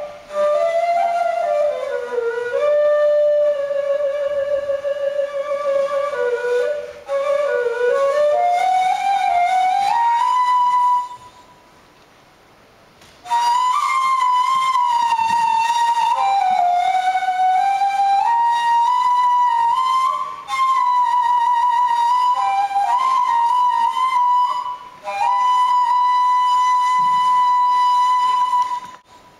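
Solo flute playing a slow melody, with vibrato on the held notes. It breaks off for a couple of seconds about eleven seconds in, then carries on.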